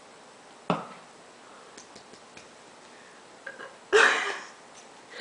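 A person burping: one loud burp of just under a second about four seconds in, fading out. There is a short sharp sound near the start.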